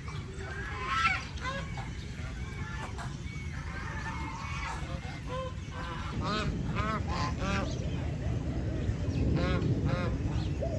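Geese honking: many short calls, some overlapping, coming thicker about six seconds in, over a steady low background rumble.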